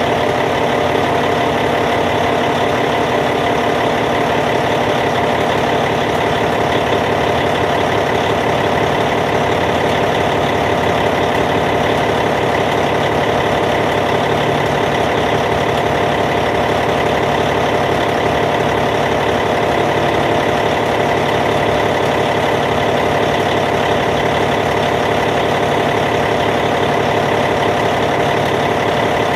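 Caterpillar C15 six-cylinder diesel engine of a Cat D8T bulldozer idling steadily, with an even, rapid firing rhythm.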